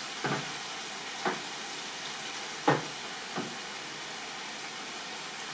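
Chicken tikka pieces sizzling steadily in hot oil in a large pan. Four short knocks sound over it, the loudest nearly three seconds in.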